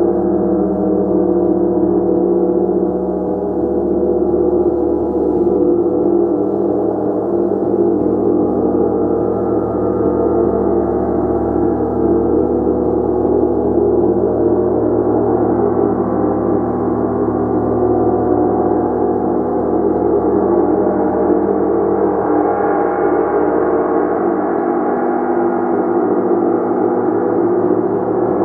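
Gong sounding a continuous, dense wash of many overlapping shimmering tones at a steady level, with no separate strikes standing out.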